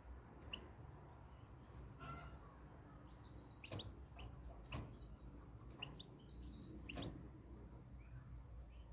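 Goldfinch giving scattered short chirps and ticking call notes, faint, rather than full song. A single sharp high note about two seconds in is the loudest sound.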